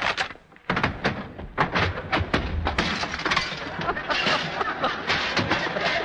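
Sound-effects fight performed live at a radio microphone. A dense run of thumps and cracks starts about a second in: a fist punching an open palm, blows on the chest, chairs thrown about and fruit baskets breaking. It ends with glass being smashed.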